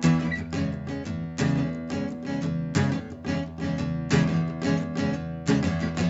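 Background music: strummed acoustic guitar playing steady chords with a regular rhythm.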